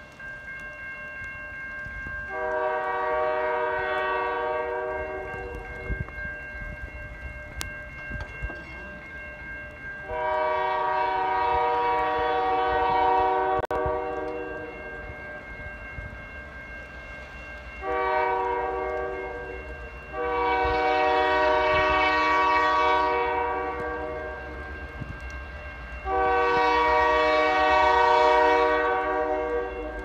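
Diesel freight locomotive's multi-note air horn, sounding one blast about two seconds in, then a long, long, short, long sequence: the standard warning for an approaching grade crossing. The blasts grow louder as the train nears.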